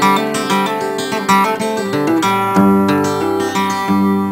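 Acoustic guitar music: plucked notes and strummed chords at an even pace.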